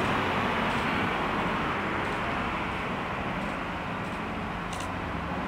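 Road traffic noise: passing vehicles' steady tyre and engine sound, slowly fading, with a few faint clicks.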